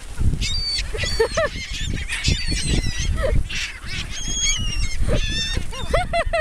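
Many seagulls calling at once, short overlapping squawks and cries, over a low rumble.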